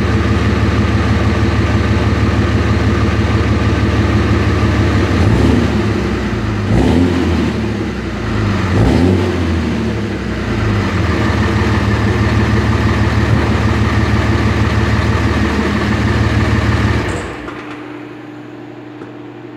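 A 5.9 L Cummins inline-six turbo diesel in a 2006 Dodge 3500 runs through a new MBRP 4-inch cat-back exhaust. The exhaust note is fairly quiet and there is no sign of leaks. The engine idles, is revved up and down twice in the middle, then settles back to idle and cuts off suddenly near the end, leaving a faint steady hum.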